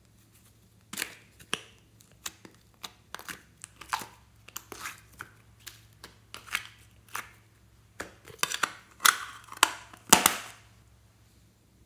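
Soft slime being pulled out of a plastic heart-shaped tub and dropped into a bowl of glossy slime, with the plastic tub handled: a run of short sticky pops and clicks at an uneven pace, loudest a little before the end.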